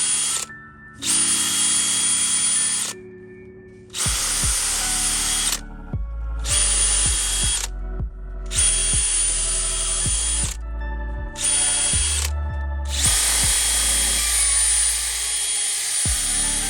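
Power drill spinning a sanding disc against a plastic headlight lens, starting and stopping in repeated bursts of a few seconds each, at the 500-grit sanding stage of a headlight restoration. Background music with a deep bass plays underneath.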